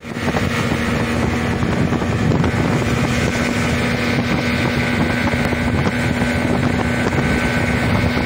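Twin Yamaha 85 hp outboard motors running steadily at speed, a constant drone with a steady hum, mixed with wind on the microphone.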